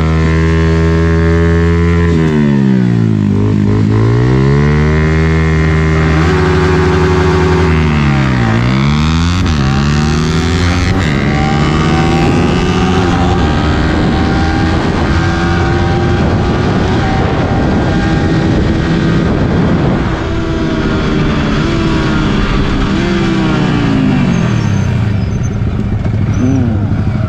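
Motorcycle engine running hard as the bike is ridden, its pitch dropping and climbing back sharply twice in the first ten seconds as it slows and picks up speed, then running higher with a few more dips.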